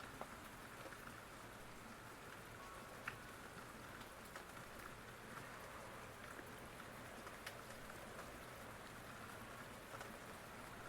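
Faint, steady rain falling, with scattered drops ticking on a surface; one sharper drop stands out about three seconds in.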